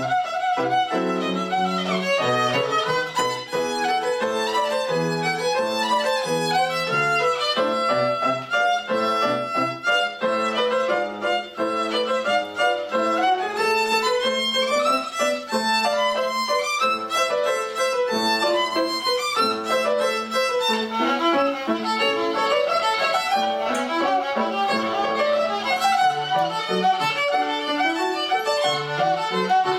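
Violin played with piano accompaniment: a run of quick bowed notes over lower piano notes.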